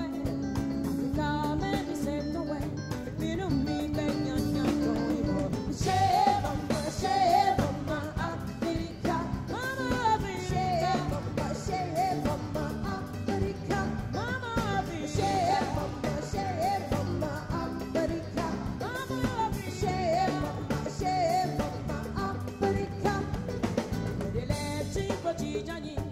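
Live band performance of a song: a woman singing lead into a microphone over a drum kit and band, her voice wavering through sung phrases.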